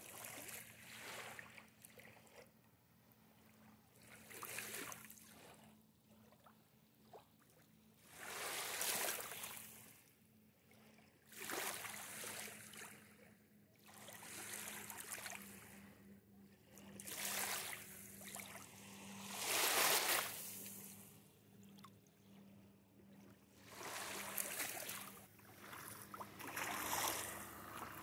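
Small lake waves washing in over a shallow sandy shore, each swell rising and falling away every few seconds.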